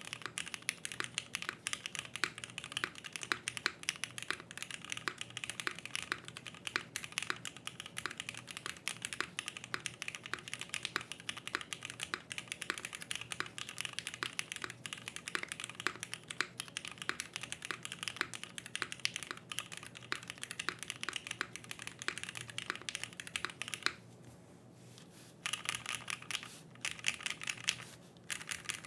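Continuous fast typing on a Vega gasket-mount mechanical keyboard with an aluminium plate, lubed and filmed Cherry Hyperglide Black linear switches and GMK keycaps: a dense run of keystrokes. It breaks off for about a second and a half near the end, then comes back in two short bursts.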